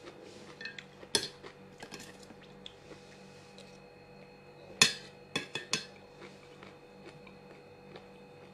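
Utensils clinking against dishes during a meal: a few scattered sharp clinks, the loudest about five seconds in, quickly followed by three more.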